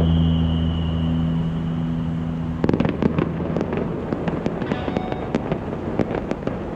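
Fireworks popping and crackling in quick, irregular pops, starting about two and a half seconds in. Before that there is a steady low hum with a thin high tone that stops suddenly.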